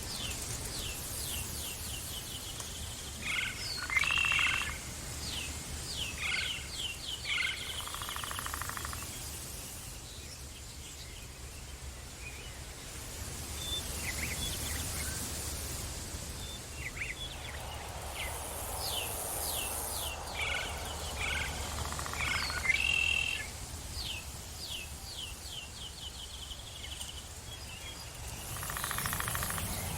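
Forest birds singing: phrases of quick, falling chirps and short trills, repeated several times with quieter stretches between. A steady low rumble runs underneath.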